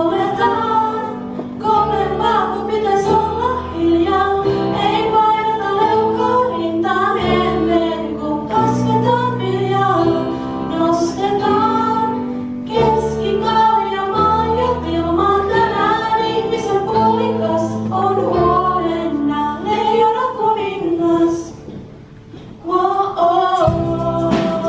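Two female singers performing a song together, their voices carrying the melody over held bass notes of an instrumental backing. The music drops away briefly near the end, then comes back.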